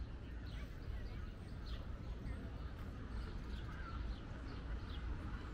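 Songbirds chirping in short, high notes, two or three a second, over a steady low rumble of outdoor background noise.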